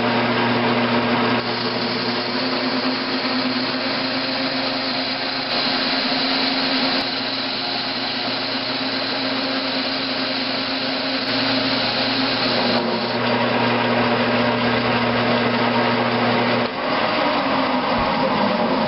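Grizzly G9972Z metal-cutting bench lathe running under a heavy roughing cut: a steady motor and gear hum under the hiss of the tool turning cast iron bar stock. The hum drops out near the end as the chuck spins down.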